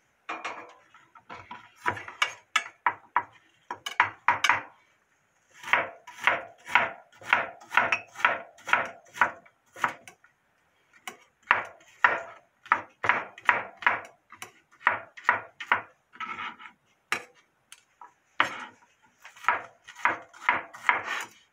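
Chef's knife chopping onion on a wooden cutting board: runs of quick strokes, about two to three a second, broken by a few short pauses.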